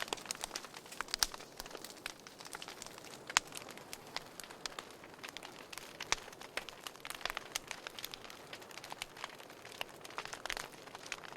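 Wood fire burning in a fireplace, crackling with irregular sharp pops and snaps over a soft hiss, a few louder pops standing out.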